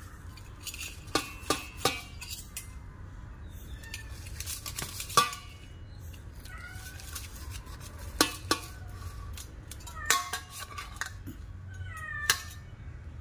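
Steel spatula cutting into a thick egg-and-porotta cake in a steel pan, with clinks and scrapes of metal on metal every second or two and a few faint short squeaks.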